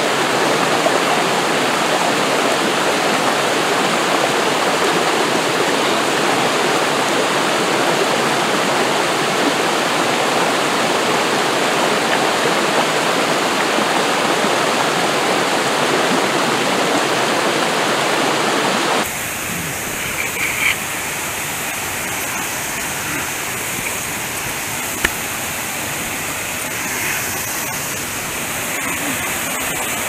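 Small mountain-stream waterfall rushing and splashing over rocks, a steady dense roar of water. About two-thirds of the way through it drops to a quieter, thinner water sound, with one faint click.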